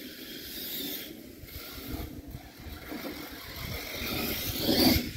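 HSP Savagery RC monster truck running across a lawn, its motor and tyres loudest in a brief surge near the end.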